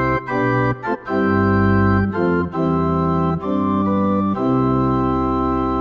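Yamaha P-125 digital piano playing its Organ Principal pipe-organ voice: a slow run of held chords, each sustained without fading, changing about every second.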